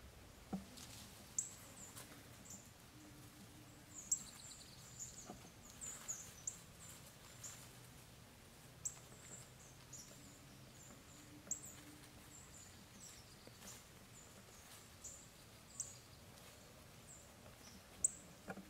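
Small birds giving short, high chip calls at irregular moments, every second or so, over quiet woodland.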